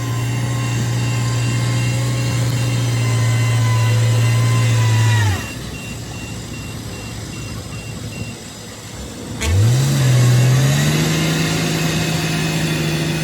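Bulldozer diesel engine running steadily at high revs, then dropping sharply in speed about five seconds in. Near ten seconds there is a click and the engine revs back up to a steady high speed.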